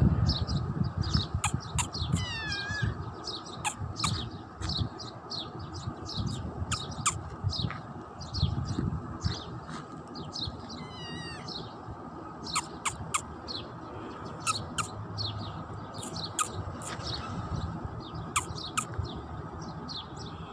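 Small birds chirping repeatedly in short high notes, with a warbled trill twice. A low rumble runs underneath, strongest at the start.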